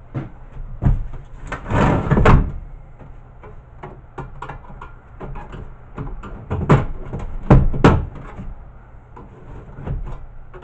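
Sheet-steel cover and plastic chassis of a VHS player being handled on a workbench: a series of irregular metallic knocks and clunks with some scraping, the loudest about two seconds in and again around seven to eight seconds in.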